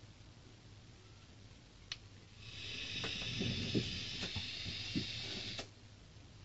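A draw of about three seconds on a Joyetech eGo AIO all-in-one e-cigarette: air hissing through the atomizer while the coil fires, with scattered light crackles, ending abruptly. A single click comes just before the draw.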